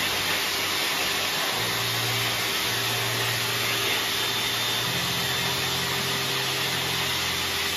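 Hose-type dog grooming dryer blowing a steady rush of air onto a dog's coat, with a constant motor hum under it.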